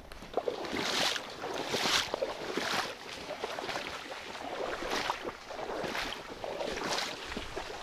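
Footsteps wading through marsh water and reeds, splashing and swishing about once a second.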